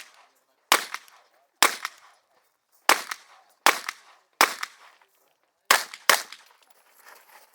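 A competition revolver fired seven times in a stage run, the shots roughly a second apart and the last two in quick succession, each with a short echo.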